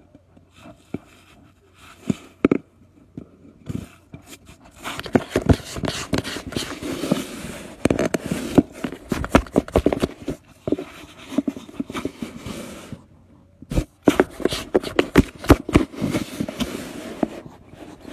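Irregular scratching, scraping and sharp clicks very close to the microphone, in two long busy stretches with a short lull about 13 seconds in, as a cat scrambles and rubs right against the phone.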